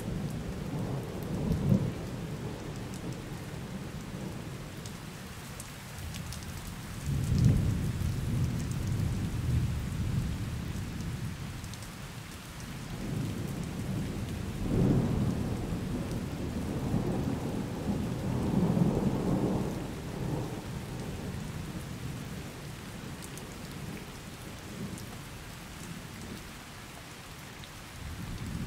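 Steady rain with several low rolls of thunder rumbling under it. The strongest swells come about 7 and 15 seconds in.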